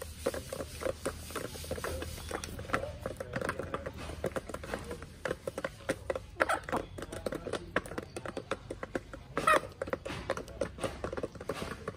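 Backyard chickens pecking at feed on bare earth: a steady run of quick, irregular taps, with brief soft clucks among them and one louder sound about nine and a half seconds in.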